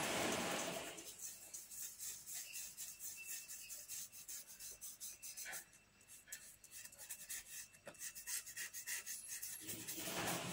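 Pencil rubbing and scratching on paper while shading a drawing. There is a longer, louder stroke in the first second and another near the end, with quick short strokes in between.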